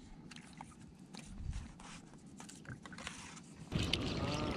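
Faint ticks and scrapes of a spinning reel and line being handled as a microjig is dropped and then retrieved. About three and a half seconds in, a louder, steady boat motor sound comes in suddenly.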